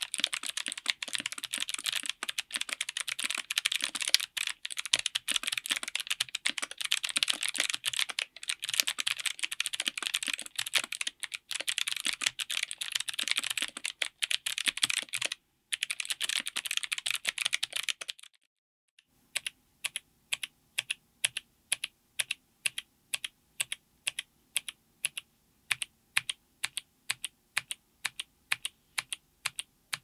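Fast typing on Kailh Crackle Ice clicky box switches under GMK ABS Cherry-profile keycaps, on an FR4 plate in a Tofu60 aluminum case: a dense clatter of crisp clicks. After a brief pause about two thirds of the way in, it gives way to a steady series of single key clicks, about three a second.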